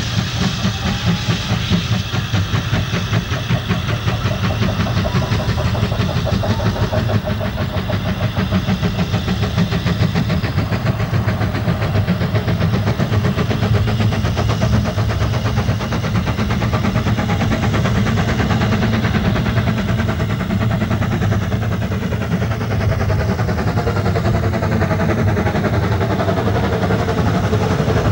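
Narrow-gauge steam tank locomotive working, its exhaust beating in a rapid, even rhythm.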